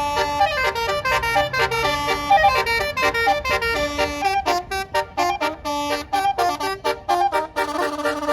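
Bus basuri musical air horn playing a fast melody of short notes one after another, the tune running on without a break.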